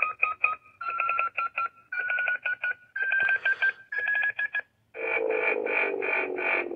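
Power Rangers Cosmic Fury morpher toy playing electronic sound effects from its small speaker: five short stuttering tones, each a step higher in pitch, then a longer buzzy tone that falls in pitch near the end.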